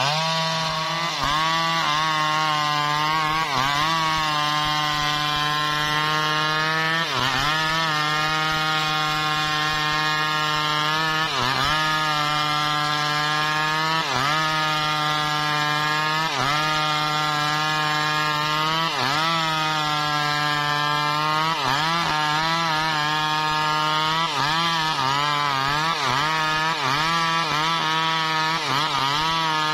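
Stihl MS 381 two-stroke chainsaw ripping lengthwise through a teak log at full throttle, its pitch dipping briefly every few seconds as the chain loads in the cut.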